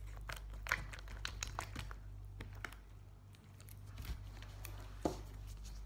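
Slime being squeezed and poked by hand: scattered soft crackling clicks over a low steady hum.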